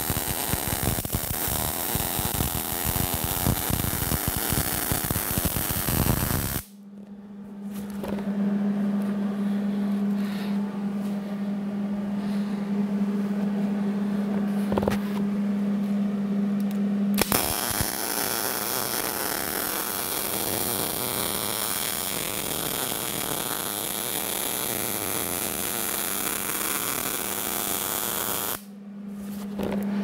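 Wire-feed (MIG) welder arc crackling and sizzling steadily as a metal gusset is welded on. The arc stops after about six seconds, leaving only a steady low hum for about ten seconds. A second bead then crackles for about eleven seconds and stops shortly before the end.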